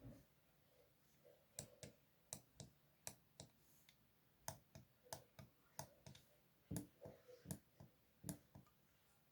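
Faint, irregular clicks, about twenty over nine seconds, from a Baseus portable air compressor being handled; its motor is not heard running.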